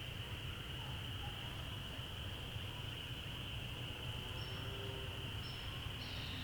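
Steady, high-pitched chorus of calling creatures, a continuous drone over a low rumble. A few faint, short whistled notes come in during the second half.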